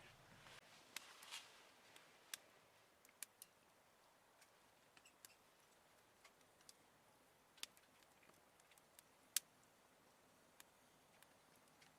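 Near silence with a few faint, scattered clicks and ticks, one sharper click a little after nine seconds in.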